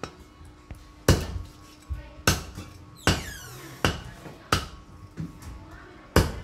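Cleaver chopping raw chicken on a thick wooden chopping board: about eight sharp thuds at uneven intervals.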